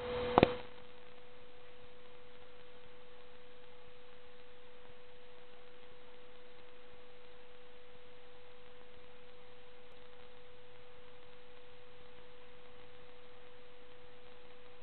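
A steady pure tone held at one unchanging pitch, with a sharp click about half a second in.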